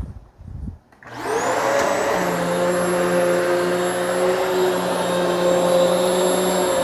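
Hoover Elite Swivel XL Pet upright vacuum switched on about a second in, its motor spinning up with a rising whine and then running steadily. A couple of low thumps come just before it starts.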